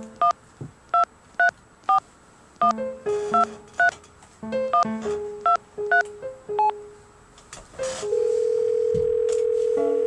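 Mobile phone keypad dialing: about a dozen short two-tone touch-tone beeps, one roughly every half second, then a steady telephone ringing tone for the last two seconds or so.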